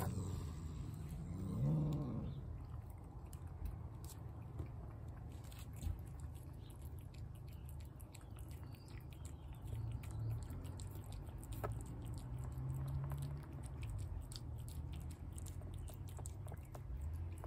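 Cat eating wet food from a plate, with small wet chewing and lapping clicks throughout. About two seconds in, one short cat call that rises and falls.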